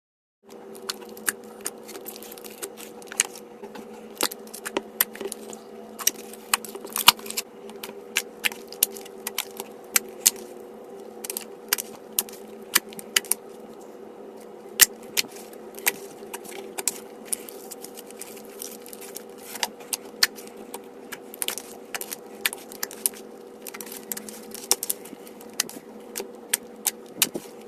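Slime being squished and worked by hand, with many irregular crisp clicks and pops, several a second, over a steady low hum.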